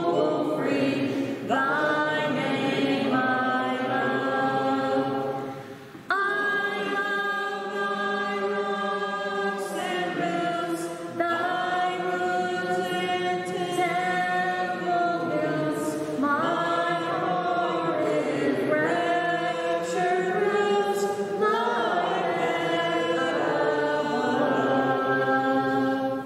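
Choir singing a slow hymn in long held notes, with a brief break about six seconds in.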